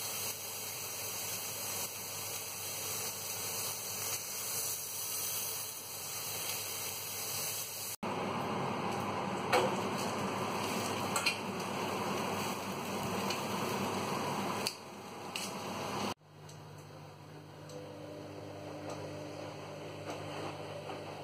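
Rolled boneless leg of lamb sizzling as it sears in a hot ridged grill pan, a steady hiss. About eight seconds in, the sound changes to handling at the oven, with a few sharp clicks of tongs against the roasting tray. The last few seconds drop to a quieter steady hum.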